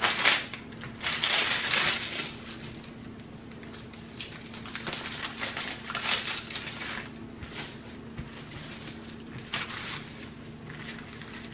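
Clear plastic cover film on a diamond-painting canvas crinkling in irregular bursts as hands press and smooth it down to work out a bubble and crease.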